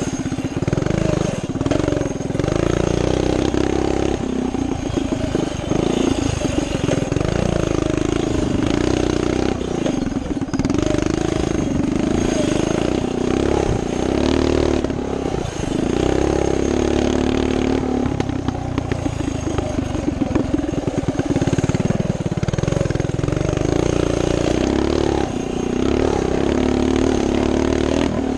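Coleman CT200U minibike's 196cc single-cylinder four-stroke engine running hard while the bike is ridden over a dirt trail. Its pitch rises and falls over and over with the throttle, with clatter from the rough ground.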